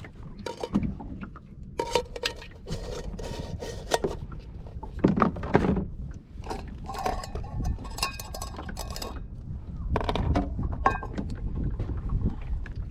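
Repeated clinks and knocks of small hard, metallic objects being handled and set down, some ringing briefly.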